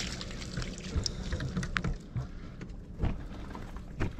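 German shepherd's paws splashing and stepping in shallow water and on wet rock at a riverbank, with a few sharp clicks from steps on stone over a steady low rumble.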